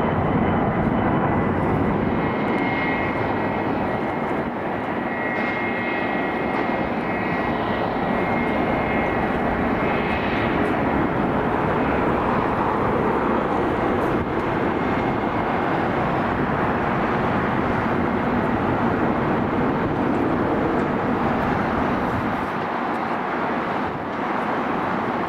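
Jet airliner passing overhead: a steady rush of jet engine noise, with a high fan whine that stands out through the first ten seconds or so.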